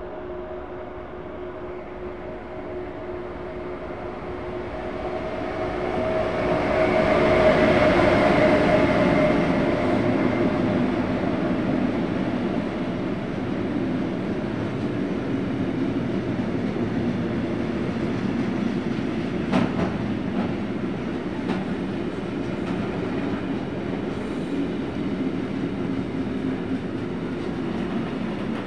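Freight train passing close by: the locomotive's hum with steady held tones builds and is loudest about seven to nine seconds in, then a long line of flat wagons carrying lorry trailers rolls past with a steady wheel rumble and a few sharp clicks of wheels over rail joints.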